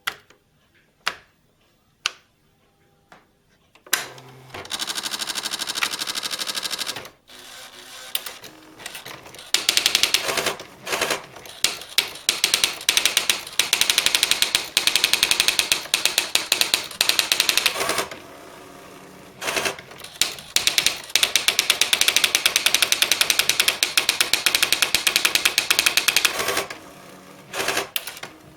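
Olivetti ET 55 electronic daisy-wheel typewriter printing on its own in demo mode: a few single clicks, a short steady mechanical sound, then long runs of very rapid, even strike-by-strike typing, broken by brief pauses between lines.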